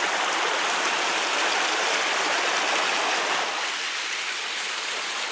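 Steady rush of stream water cascading over granite ledges, a little softer from about three and a half seconds in.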